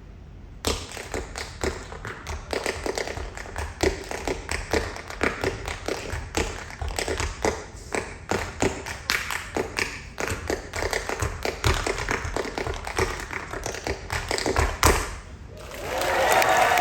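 Tap shoes striking a stage floor in a fast, dense tap-dance rhythm that starts suddenly about half a second in. The tapping stops near the end, and the audience breaks into applause.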